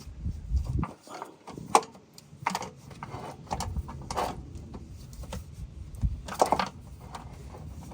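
Metal parts and hand tools knocking, clanking and scraping irregularly as someone works under a car, with a sharp knock about two seconds in and a cluster of clanks near the end.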